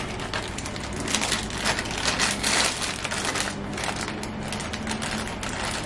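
A plastic bag of cotton pads being handled, crinkling and rustling in a quick run of crackles that is densest about two to three seconds in.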